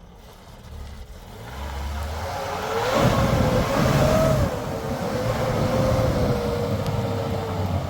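A motor vehicle's engine running and being revved, growing louder from about a second in. A whine rises and falls in pitch over the second half.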